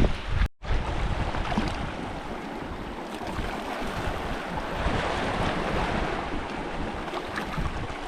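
Sea waves washing against coastal rocks, with wind buffeting the microphone in low rumbles that are strongest at the start. The sound cuts out completely for an instant about half a second in.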